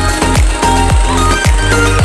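Electronic dance music with a steady kick-drum beat, about two kicks a second, under sustained synth notes.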